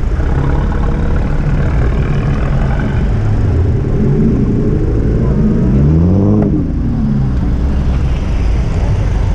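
A car accelerating past, its engine note climbing for a couple of seconds and then dropping steeply as it goes by a little after the middle, over a low steady engine rumble.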